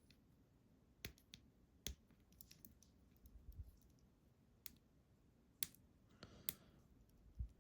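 Faint, scattered clicks and taps from small metal lock parts and tools while an iNAHO Tierkey lock is being taken apart, about six sharp clicks spread over several seconds.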